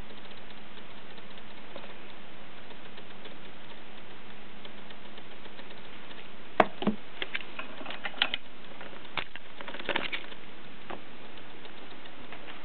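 Steady hiss, then from about halfway a scatter of sharp clicks and knocks over a few seconds, the first the loudest: handling noise as a handheld camera is moved about over a desk.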